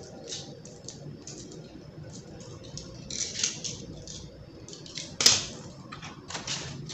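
Hands handling the trimmer's packaging and small plastic parts: a string of light clicks and rustles, with a brief burst of rustling about three seconds in and one sharp, loud click a little after five seconds.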